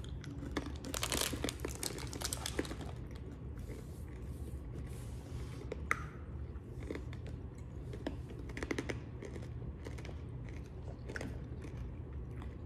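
Mouth chewing and crunching green chili pistachio brittle: irregular small crunches, with one sharper crack about six seconds in.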